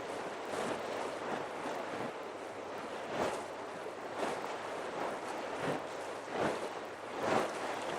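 Sea waves washing with wind on the microphone, the wash swelling in short surges about once a second in the second half.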